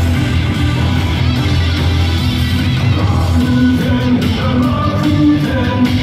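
Loud cheer song playing over the baseball stadium's sound system.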